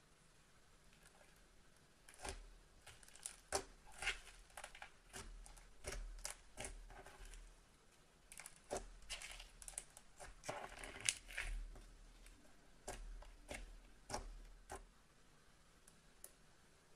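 Glossy slime squeezed and poked by fingers, giving irregular sticky clicks and small crackling pops from about two seconds in, dying away near the end.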